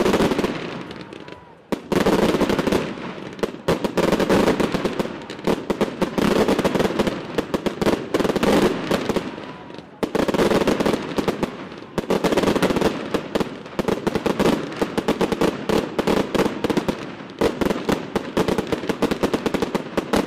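Aerial fireworks bursting overhead: a dense, rapid crackle of many sharp reports that comes in waves, easing off briefly a few times before building again.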